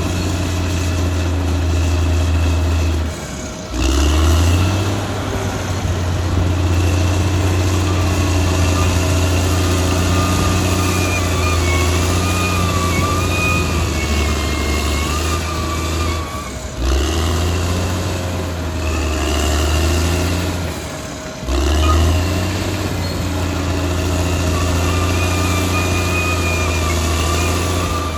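Caterpillar D6R XL bulldozer's diesel engine running under load, with a wavering higher-pitched whine over it. The revs drop briefly and pick back up three times: about three and a half seconds in, around sixteen seconds and around twenty-one seconds.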